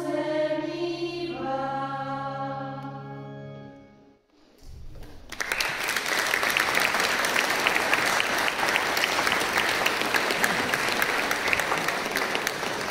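A choir of men and women holds the final chord of a carol, which fades away about four seconds in; after a short pause the audience breaks into steady applause.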